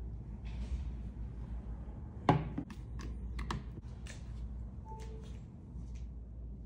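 Handling noises on a table: one sharp knock about two seconds in, then a handful of lighter clicks and taps, over a low steady hum.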